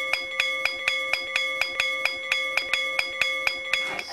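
A school bell struck rapidly and evenly, about four strokes a second. Each stroke rings on into the next, and the ringing stops near the end.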